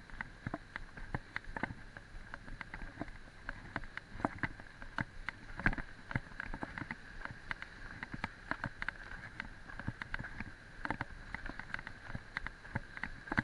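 Mountain bike rattling and clattering as it rolls fast over a rough dirt trail: many irregular sharp knocks and clicks over a steady high-pitched whir.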